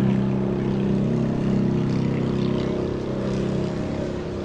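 An engine running steadily, growing a little quieter near the end.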